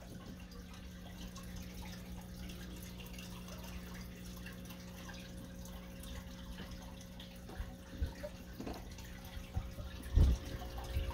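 Aquarium filter running: water trickling and dripping over a steady low hum, with a few short low thumps near the end.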